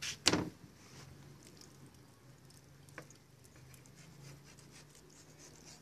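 Faint scraping and light taps of a fillet knife slicing through a king mackerel fillet on a plastic cutting board, cutting out the bone line. A short sharp noise comes just after the start and a single click about three seconds in.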